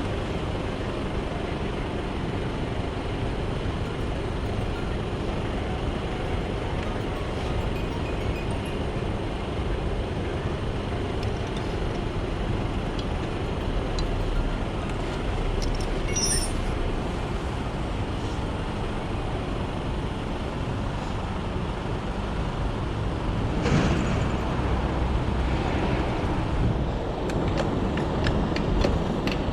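Steady motor vehicle noise, with a few brief clicks or knocks.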